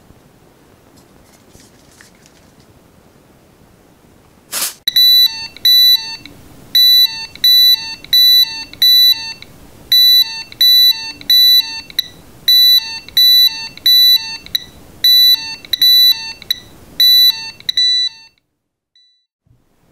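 A short spray hiss from a deodorant can about four and a half seconds in. The gas sensor box's alarm buzzer then sets off a run of rapid, high-pitched electronic beeps, about two to three a second, and stops abruptly about eighteen seconds in. The alarm is triggered by the deodorant's gases reaching the sensors.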